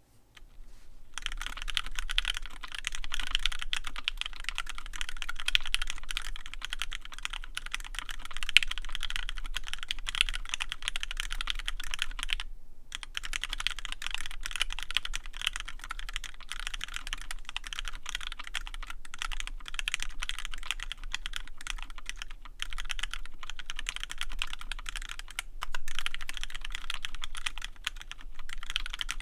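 Fast continuous typing on a custom 65% mechanical keyboard with lubed Gateron Yellow linear switches fitted with switch films, PBT keycaps and an aluminium plate. The case has drilled-out tray mounts for a softer sound. The typing starts about a second in and pauses briefly near the middle.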